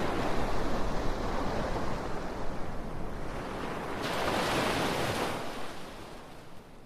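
Ocean surf washing ashore, a steady rush of waves with one wave swelling about four seconds in, then the sound fading away near the end.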